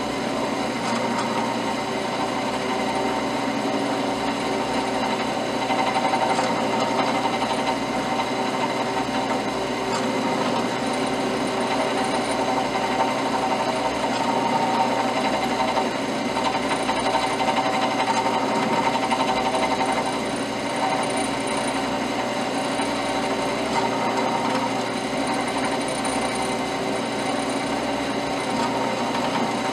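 Drill press running steadily as a small number 49 drill bit is eased slowly into a threaded metal plug, drilling a small vent hole.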